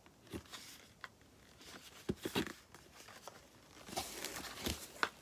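A small cardboard product carton and its packaging being handled and turned over: scattered light taps and crinkling rustles, busier near the end.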